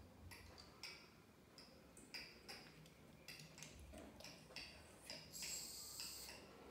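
Faint, irregular clicks and taps of plastic LEGO bricks being handled, pulled apart and pressed together.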